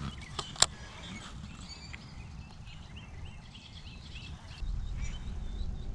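Small birds chirping repeatedly, with wind rumbling on the microphone that picks up near the end. A single sharp click about half a second in.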